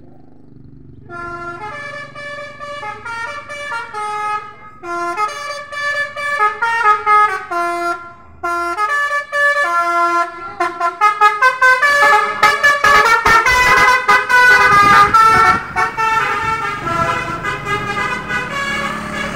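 Basuri melodic horn on a tour bus playing a tune in stepped notes, starting about a second in. It grows louder and denser from about twelve seconds in as the bus comes close.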